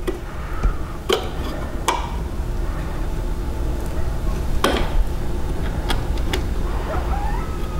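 A few sharp small clicks and knocks from a control panel and its screws being handled and lined up against a wooden fascia, the clearest about a second in, two seconds in and near the five-second mark, over a steady low rumble.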